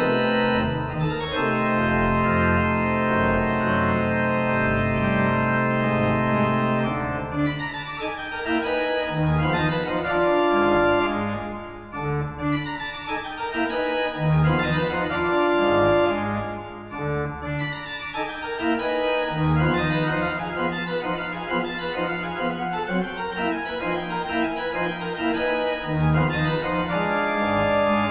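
Pipe organ playing full sustained chords. A thick chord is held for the first several seconds, then the chords shift over moving bass notes, easing off briefly twice.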